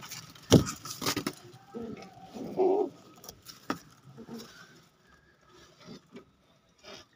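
Domestic pigeons cooing while they are handled out of their loft, with wing flapping and a few sharp knocks and clicks; the loudest knock comes about half a second in.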